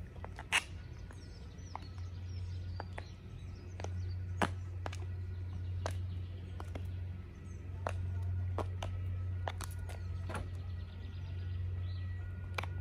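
Red-soled So Kate stiletto pumps with new heel tips clicking on stone paving slabs as the wearer walks, sharp single strikes at roughly one a second. Underneath is a steady low rumble, with birds chirping faintly.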